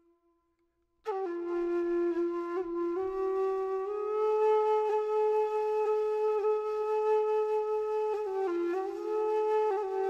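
Slow instrumental background music of long held notes, coming in about a second in after a moment of silence.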